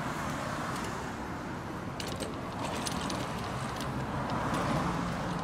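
Wheeled pet cart rolling over sidewalk paving: a steady rumble from the wheels with scattered light rattling clicks, clustered between about two and three seconds in, over passing street traffic.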